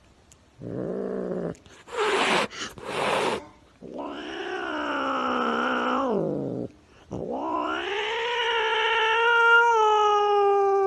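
A domestic cat yowling: a short call, a couple of brief noisy bursts, then two long drawn-out yowls. The second yowl is the longest, rising in pitch, holding, then sliding down as it ends.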